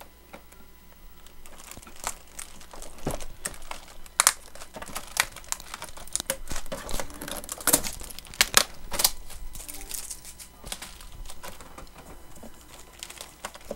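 Plastic packaging and packing tape crinkling and tearing as they are pulled off a new printer, as a run of irregular sharp crackles starting about a second and a half in.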